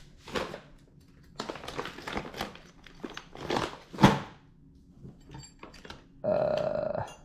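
Scattered rustling and clunking of hand work on a scooter's front wheel and fork, with one sharp knock about four seconds in and a short steady buzz near the end.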